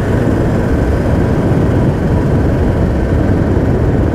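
Riding noise from a Royal Enfield Classic 350 at a steady cruise: the single-cylinder engine running under heavy wind rumble on the microphone. It is loud and steady throughout.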